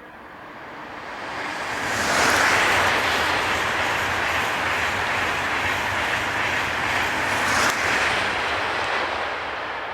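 A train passing by: a rushing noise builds over the first two seconds, stays loud for about six seconds, then fades toward the end.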